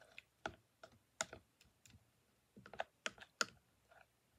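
Small spoon clicking and scraping against a baby's bowl while stirring food, a dozen or so short irregular clicks bunched in little runs.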